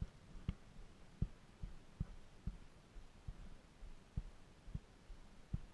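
A run of faint, irregular low thumps, roughly two a second, over a low rumble.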